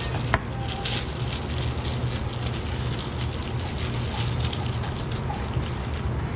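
Steady low hum and rushing noise of kitchen equipment, with one sharp knock about a third of a second in and light clatter of a knife and ingredients being handled on a wooden cutting board.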